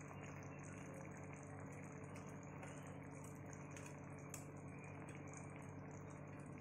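Curry gravy simmering in a pan, heard faintly as irregular small bubbling pops over a steady low hum.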